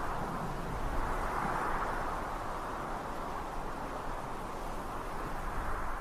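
Steady rushing noise with no distinct tones, swelling a little in the first couple of seconds and easing slightly toward the end.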